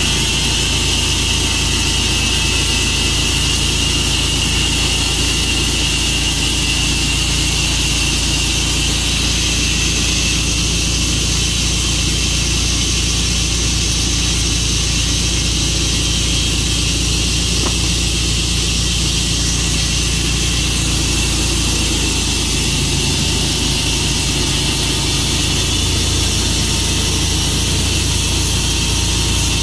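Portable sawmill running steadily under power, with a constant high whine over the engine sound.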